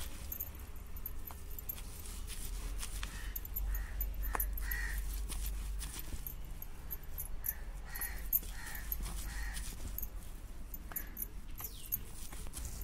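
Stone grinding roller worked back and forth over a stone slab, grinding cooked chana dal and jaggery into puran paste, with soft scraping and a few sharp stone knocks. A bird caws several times in short calls over it.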